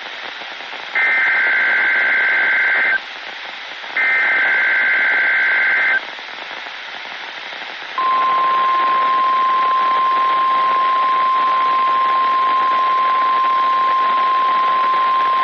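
NOAA Weather Radio emergency alert over radio static: two buzzy two-tone SAME header data bursts, each about two seconds long and a second apart, then after a short pause a steady single-pitch 1050 Hz warning alarm tone starting about eight seconds in. This tone sequence signals a new alert being broadcast, here a tornado watch.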